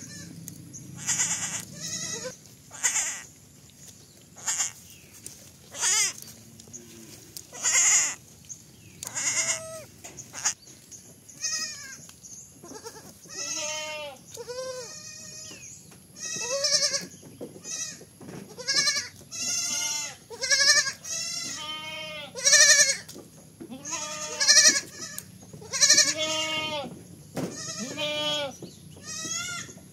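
Goat kids bleating over and over in short, high, wavering calls, coming thicker and faster in the second half. In the first third, short rustling, crunching bursts of leafy plants being torn and chewed come between the calls.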